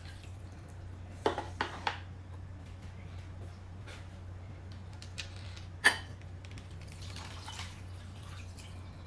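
Light clinks of eating utensils against a bowl: three quick taps about a second in, then a single sharper, ringing clink near the middle, over a steady low hum.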